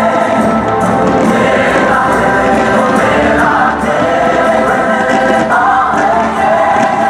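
Fireworks show soundtrack: a choir singing held notes over music, loud and continuous.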